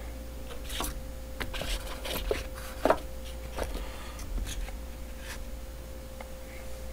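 Small metal vape atomizer parts and their cardboard box being handled on a tabletop: scattered light clicks and taps, the clearest about three seconds in, over a faint steady hum.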